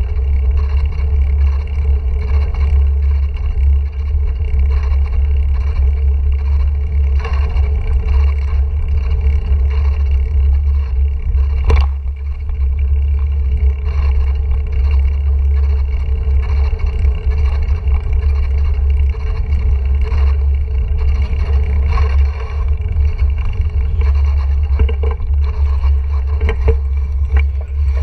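Heavy wind rumble on a GoPro Hero 4's microphone as a mountain bike rolls along, with the hiss of tyres on paving stones and a single sharp click about twelve seconds in.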